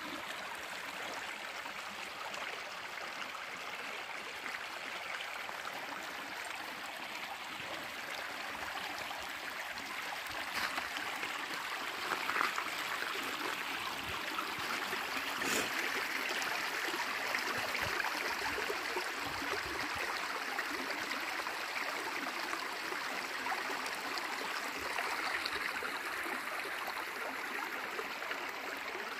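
Small mountain stream running steadily, a continuous rushing and gurgling of water, with a few brief clicks over it partway through.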